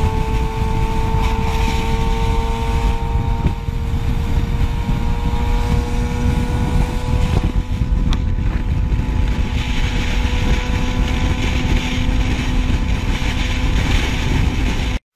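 Motorcycle engine running at a steady highway cruise, its steady pitched drone under heavy wind buffeting on the onboard microphone.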